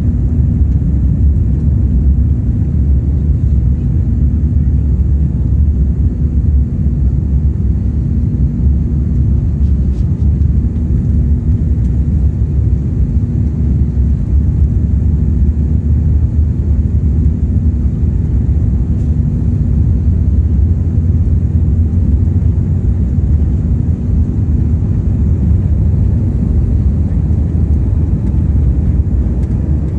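Steady low rumble of a jet airliner heard from inside the cabin as it moves on the ground, engines and rolling noise blended, with a faint steady hum over it.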